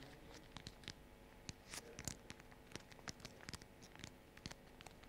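Faint crinkles and small clicks of origami paper being folded in half and creased by hand, in scattered short bursts.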